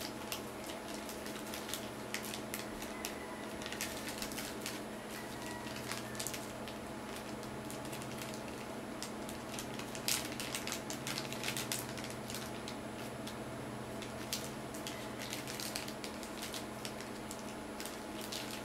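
Clear plastic packaging bag crinkling and crackling in irregular bursts as hands handle and open it, over a steady low hum.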